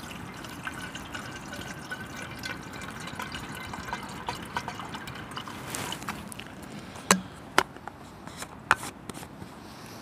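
Water trickling and dripping with small ticks, then three sharp clinks in the second half.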